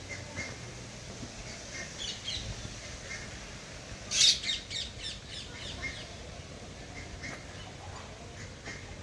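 A bird gives one loud squawk about four seconds in, followed quickly by a run of shorter calls, while other birds chirp faintly throughout.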